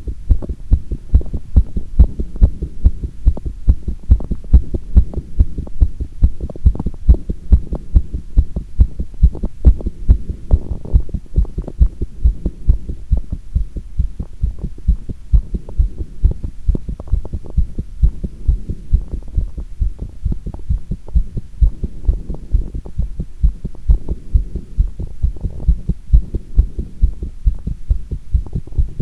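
A human heartbeat heard close up after squats, with the heart rate raised by exercise: a steady, regular run of low thumps, beat after beat.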